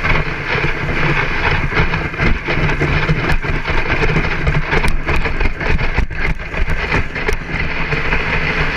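Dog sled running over hard-packed snow: a steady scraping rumble from the runners, with frequent small clicks and rattles from the sled.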